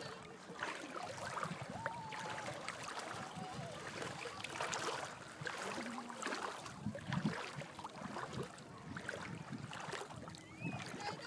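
Shallow seawater sloshing and splashing as legs wade through it, an uneven run of small splashes.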